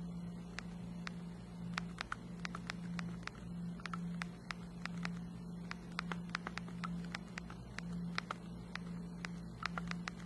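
BlackBerry Storm 9530's clickable touchscreen clicking as the whole screen is pressed down under the thumbs to type a sentence. It gives a string of sharp, irregular clicks, a few a second, over a steady low hum.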